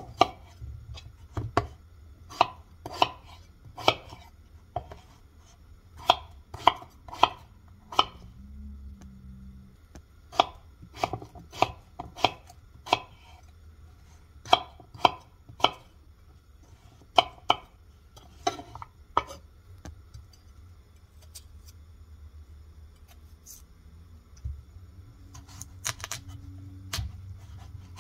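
Knife cutting through a peeled raw potato and knocking on a wooden cutting board: sharp chops in runs of several strokes, with a pause of a few seconds past the middle.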